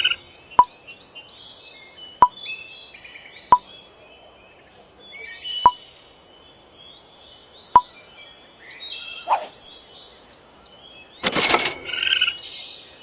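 Forest birds chirping and trilling, with about six sharp single clicks spaced a second or two apart. A loud rushing burst comes about eleven seconds in.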